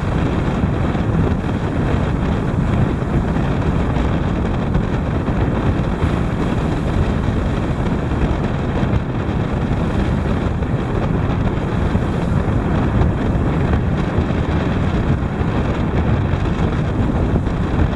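Steady wind rumble on the microphone aboard a moving boat, over the boat's engine and the wash of the sea.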